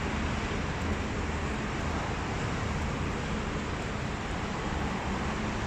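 Steady road traffic noise, an even rush with no single vehicle standing out.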